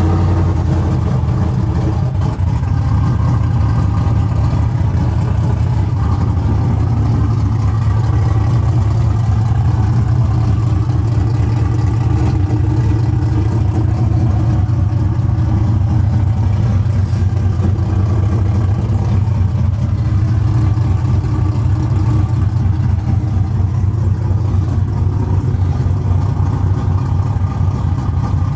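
Pickup truck engine idling steadily on a cold start, a constant low rumble.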